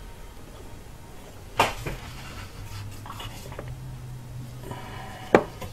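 Two sharp metal clicks about four seconds apart, the second louder, as a right-angle pick is worked between a tight rubber fuel hose and the steel line of a Subaru fuel filter, over a faint low hum.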